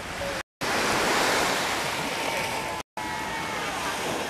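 Small waves washing onto a sandy beach, a steady rushing hiss, broken twice by short gaps of silence where the recording cuts.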